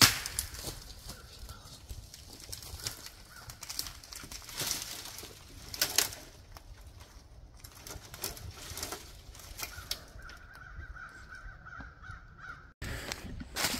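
Dry branches being laid and shoved onto a brush pile over a wooden pallet, with sharp cracks and snaps of sticks and rustling dry leaves underfoot.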